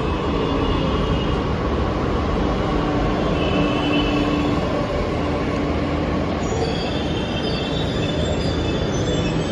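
Bombardier-built Delhi Metro train pulling into an elevated station and braking to a stop, a loud, steady rumble of wheels and running gear. Thin, high squealing tones come in about two-thirds of the way through as it slows.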